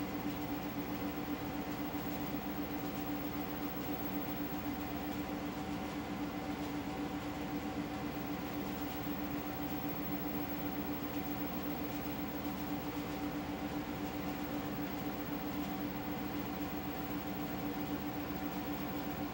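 Steady machine hum with hiss and a constant low drone, unchanging throughout, such as playback equipment running; no voices.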